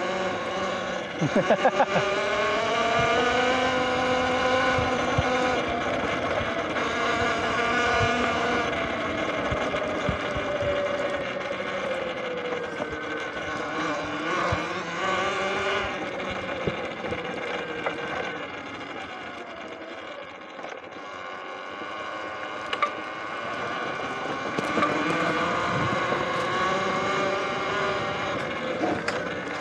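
Electric dirt bike's motor whining under way, its pitch rising and falling as the speed changes, with scattered low knocks beneath it.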